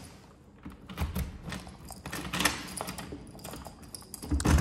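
A bunch of keys jangling and clicking as a key is worked into a door lock and turned: a run of irregular small metallic clicks and rattles, with the loudest clatter near the end.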